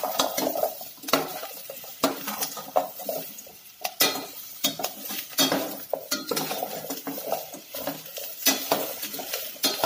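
Metal spatula scraping and clanking against the sides of a stainless steel pot as chopped vegetables are stirred and sautéed in oil, with irregular knocks about every second.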